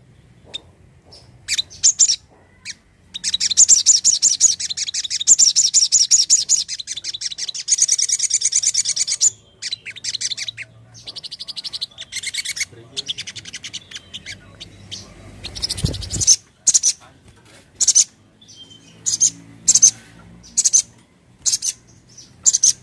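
Sunbird ('sogon') singing. A few sharp high chips lead into a rapid high trill lasting about six seconds, then it goes back to short 'cret cret' chips. There is one low thump about two-thirds of the way through.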